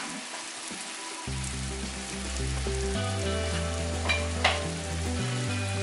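Red masala paste with kingfish steaks in it sizzling steadily in a frying pan on a slow heat. Low background music comes in about a second in, and two short clicks sound near the middle.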